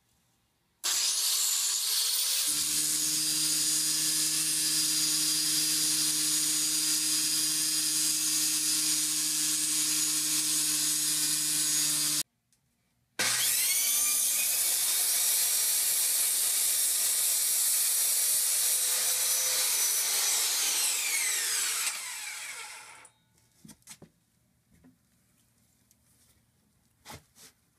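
An angle grinder runs for about eleven seconds, cutting through a stubborn steel bolt that holds down an RV's rotted subfloor. After a short break, a circular saw spins up with a rising whine and cuts through the old wooden subfloor, then winds down with a falling whine, followed by a few faint knocks.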